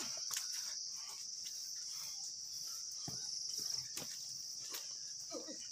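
Forest insects droning: a steady, high-pitched buzzing chorus, with light scattered clicks over it.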